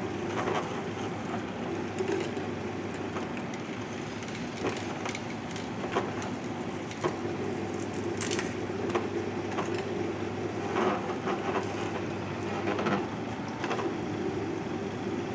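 Twin-gear masticating juicer running with a steady motor hum while its gears crush and break down vegetables, with scattered crackling and snapping.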